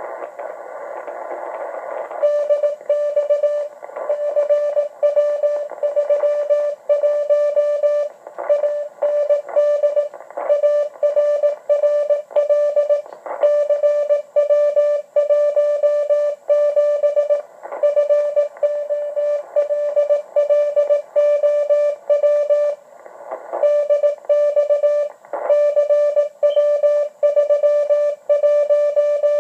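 Morse code from W1AW's code practice transmission, received on a Yaesu HF transceiver: a single steady tone keyed on and off in dots and dashes through the radio's speaker, with short pauses between words. A stretch of hiss fills the first two seconds.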